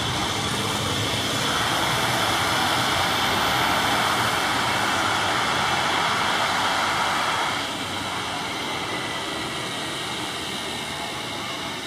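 The two Williams FJ44 turbofans of a Cessna Citation M2 business jet climbing away after takeoff: a steady jet rush with a thin high whine. The sound drops suddenly in loudness about two-thirds of the way through as the jet recedes.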